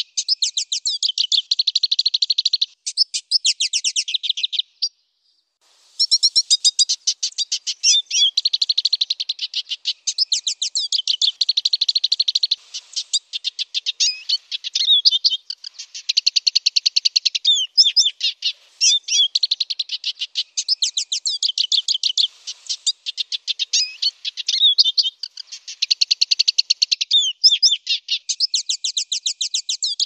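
Black siskin singing a long, continuous song of rapid twittering trills, with one short pause about five seconds in.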